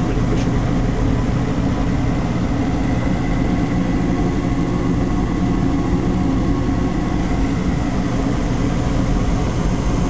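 Intertherm mid-efficiency gas furnace running steadily after start-up with its burners lit: a continuous low hum from the inducer fan and burners, with a faint steady high whine.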